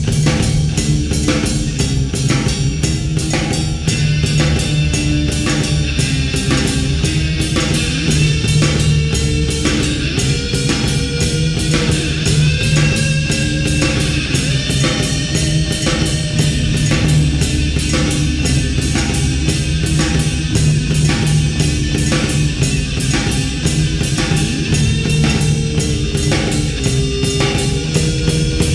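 Background rock music with drums and guitar, a steady beat throughout.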